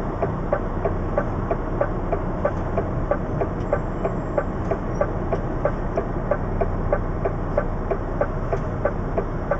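DAF CF lorry's diesel engine idling while stationary, heard inside the cab, with a steady ticking about three times a second over the hum.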